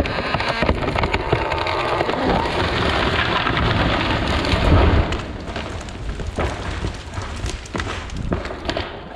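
Cedar tree falling: a swelling rush of cracking wood and branches, then a heavy crash about five seconds in, followed by debris crackling and settling as it dies away.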